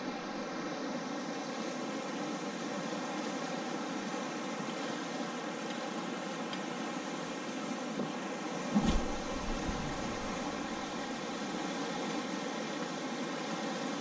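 Steady rushing of a fast, strong river current over rapids, with a single brief thump about nine seconds in.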